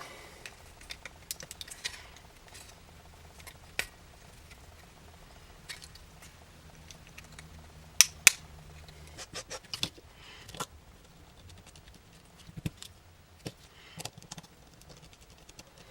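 Small tools and loose parts of a compact digital camera clicking and tapping during disassembly of its lens assembly, with scattered light clicks and two sharper clicks in quick succession about halfway through.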